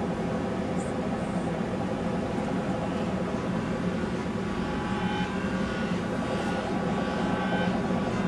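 Computer-generated drone from a motion-tracking music system, its pitch and timbre shaped by the dancers' movements: a dense, steady drone of many held tones, with higher tones shifting in and out from about five seconds in.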